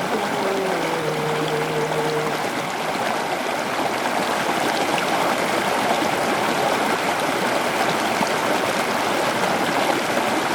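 Steady rush of flowing river water. A chanted recitation's last held note ends about two seconds in, leaving only the water.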